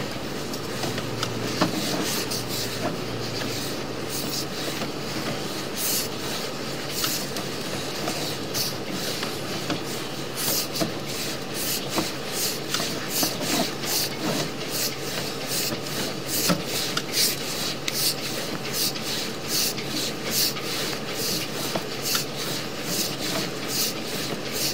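Sewer inspection camera's push cable being fed through the pipe by hand: repeated rubbing and scraping strokes over a steady low hum. The strokes come faster in the second half, about two a second.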